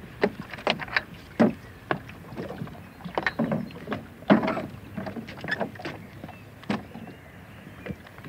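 Irregular knocks and clunks of gear being moved about aboard a small rowing boat on a lake, the loudest a heavy clunk about four seconds in. Distant birds call faintly.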